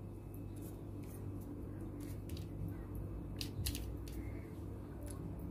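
Pastry brush stroking beaten egg yolk onto raw samosa dough, a string of faint soft brushing and dabbing sounds over a steady low hum.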